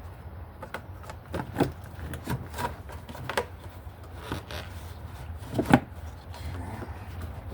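Hands working a rubber hose and its clamps onto a throttle body: rubbing with scattered light clicks and knocks, the sharpest twice, over a steady low hum.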